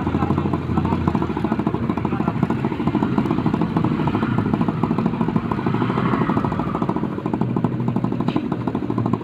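Motorcycle engine running steadily as the bike rides along a rough, unfinished road, with a fast, even engine pulse throughout.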